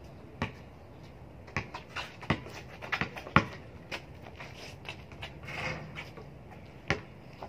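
Basketball bouncing on an outdoor hard court: irregular sharp thuds of dribbling, bunched together a little past the start and coming once more near the end. A brief voice-like cry or bark comes about three-quarters through.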